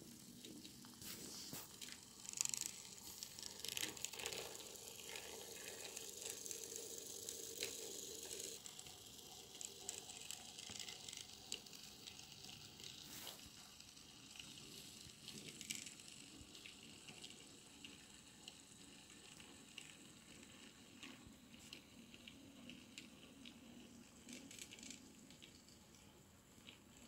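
Faint running noise of an N-scale Fleischmann BB63500 model diesel locomotive hauling wagons along the track: a light, irregular clicking and rattling of small wheels on the rails. It is somewhat louder over the first several seconds, then fainter.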